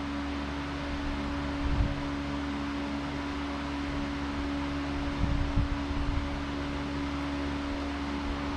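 Steady machine hum with a constant droning tone and a few soft low thumps about 2 seconds in and again around 5 to 6 seconds.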